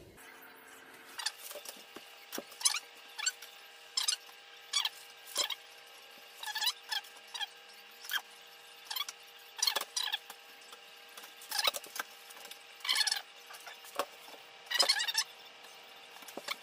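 A pencil point scratching and squeaking on painted wooden cabinet doors, about twenty short, irregular strokes as hole positions for the handles are marked, over a faint steady hum.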